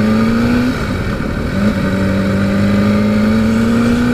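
Kawasaki sport motorcycle's engine pulling under acceleration, its note rising in pitch. About a second in it breaks off briefly for an upshift, then comes back lower and climbs steadily again.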